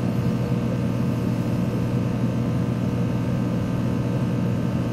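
Steady low mechanical hum with a constant drone and a faint hiss over it, unchanging throughout.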